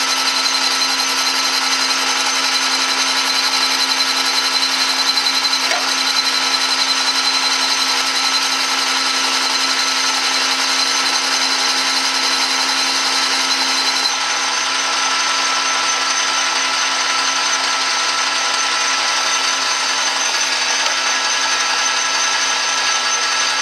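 Metal lathe running steadily, taking a light cleanup cut on brass bar stock: an even motor and gear whine over a hiss. One high tone in it drops out about two-thirds of the way through.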